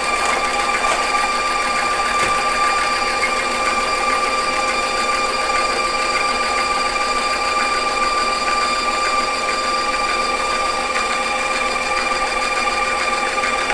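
Electric stand mixer running at a steady speed, its motor giving a constant whine as the wire whip beats butter and sugar in a stainless steel bowl. The butter and sugar are being creamed.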